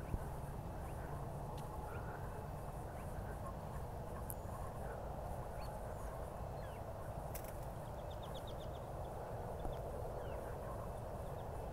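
Quiet garden ambience: a steady low rumble with faint small-bird chirps scattered through it and a short rapid trill a little past the middle.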